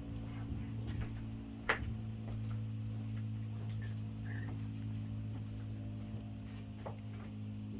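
Scattered light clicks and taps of hand work with parts and a silicone tube, one sharper click about two seconds in, over a steady electrical hum.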